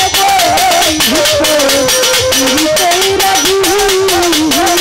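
Live Bangla baul folk song: a woman's singing voice carries a gliding, ornamented melody over a quick, steady percussion beat.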